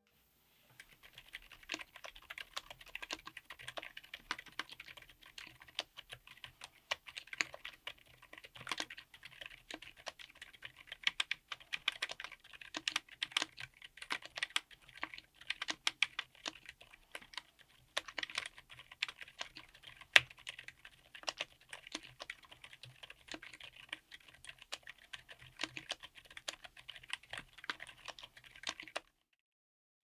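Typing test on a 60% keyboard with Akko Penguin silent tactile switches, GMK Hennessey ABS Cherry-profile keycaps, an FR4 plate and a Tofu60 aluminium case: a dense, continuous run of keystrokes that starts just under a second in and stops shortly before the end.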